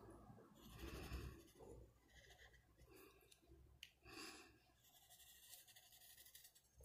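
Faint scratching of a Posca paint marker's tip drawn across paper in several short strokes.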